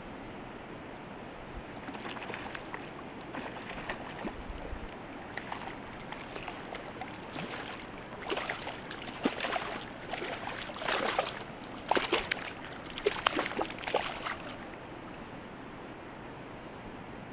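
Hooked rainbow trout thrashing and splashing at the water's surface while being played on a fly rod. The irregular splashes start a couple of seconds in, are loudest in the middle, and stop a few seconds before the end.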